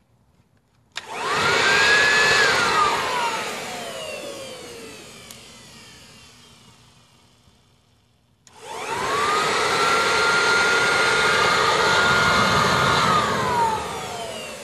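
Electric blower run twice to fan a wood fire in a fire pit, with a rush of air. Each time its motor whine rises as it starts, holds steady, then slides down as it winds off. The first run is short, about a second and a half; the second starts about halfway through and holds for about four seconds.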